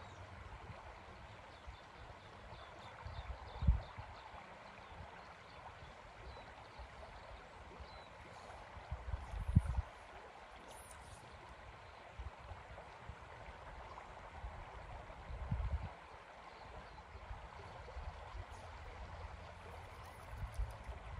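Mataura River water flowing steadily past a gravel bank, a soft even rush. Three brief low thumps break through, a few seconds apart.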